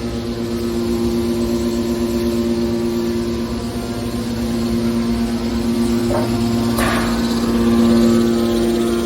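Hydraulic scrap metal baler running: its power unit (motor and hydraulic pump) gives a steady drone. Two brief knocks sound about six and seven seconds in.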